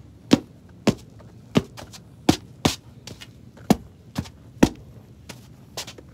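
Footsteps of a person walking on a rubber running track, a sharp tap about every half to two-thirds of a second.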